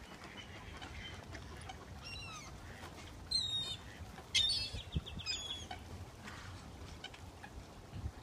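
Birds calling at a lake: several short, high calls, the loudest two about three and a half and four and a half seconds in, the second breaking into a quick run of repeated notes.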